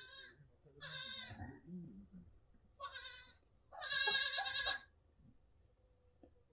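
Young lambs and goat kids bleating: four high, quavering bleats within about five seconds, the last one the longest and loudest.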